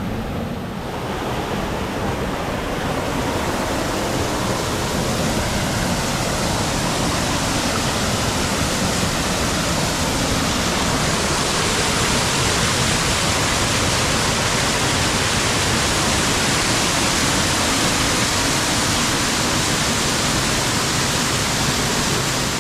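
Woodland waterfall pouring into a river, a steady rushing of falling water that grows slightly louder over the first few seconds and then holds.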